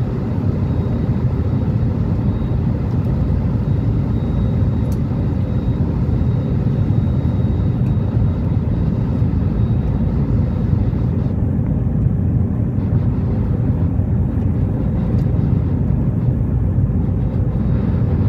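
Steady low rumble of an airliner's jet engines and rushing air heard inside the cabin during the climb after takeoff, with a faint thin high whine through the first half.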